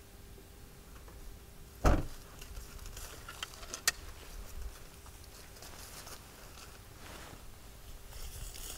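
A hatchback's tailgate shuts with a single thump about two seconds in, followed by footsteps on grass, a sharp click and light rustling as plastic recovery boards are handled and laid on the grass against a tyre.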